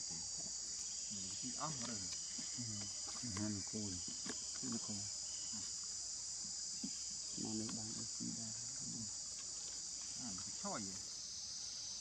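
Steady high shrill of an insect chorus, with low voices coming through now and then.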